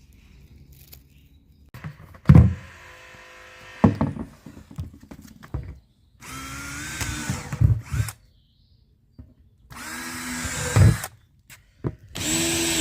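Cordless power drill run in four short bursts, its motor whine climbing as it bites, drilling drainage holes so water can drain out of a container.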